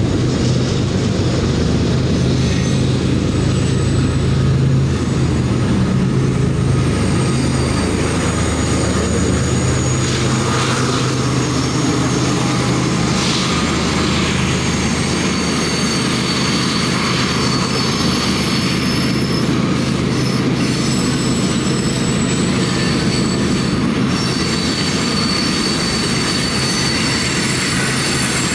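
Freight train cars rolling steadily past on a curve, wheels clattering on the rails. High, thin wheel squeals come and go, more often in the second half.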